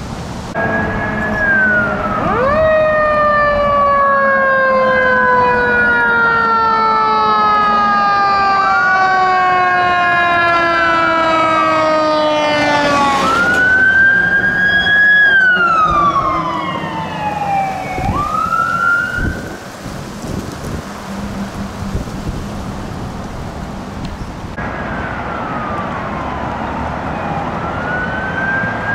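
Fire engine sirens sounding as the apparatus pass. One siren wails up and down over and over. A second siren winds up sharply about two seconds in and then slides slowly down in pitch for about ten seconds. Quicker wail sweeps follow, and the wailing continues to the end.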